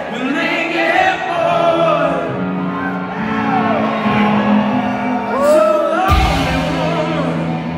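Live rock band playing a song, with a lead melody line that bends up and down in pitch over the band.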